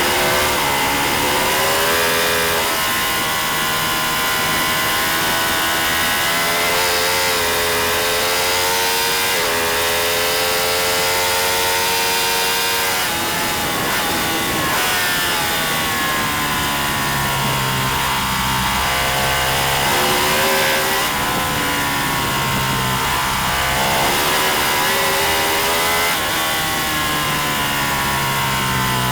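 Racing motorcycle engine running hard at full race pace, its pitch climbing through the gears and falling sharply each time the throttle closes, several times over, with a steady rush of wind noise.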